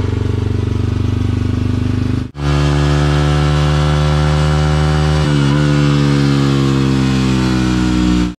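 Modified Yamaha Y15ZR's 150 cc single-cylinder four-stroke engine running on a dyno roller: steady for about two seconds, then after a short break its pitch climbs slowly as the revs rise under load, dipping briefly about five seconds in.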